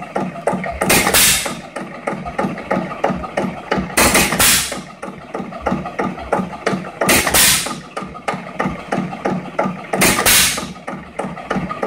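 3½ hp Jaeger hit-and-miss gas engine running unloaded on its governor. It fires four times, about every three seconds, each firing a loud exhaust beat, and coasts between firings with a regular light clicking.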